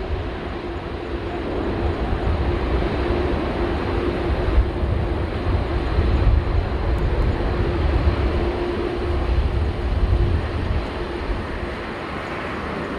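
Boeing 787 airliner's jet engines rumbling as it lands, with a steady hum in the noise, and gusty wind buffeting the microphone.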